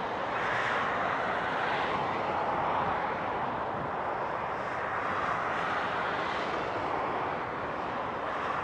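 Airbus A300-600ST Beluga's twin General Electric CF6-80C2 turbofans running as the jet rolls slowly along the runway: a steady rushing jet noise with gentle swells in level.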